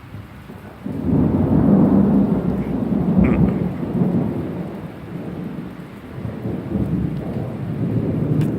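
Thunder rumbling over steady rain: a loud peal breaks in suddenly about a second in, rolls for a few seconds and dies down, then swells again near the end.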